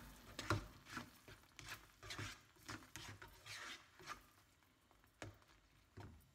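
Spatula stirring and scraping thick, cooked-down tomato chutney around a frying pan: faint, irregular scrapes about once or twice a second.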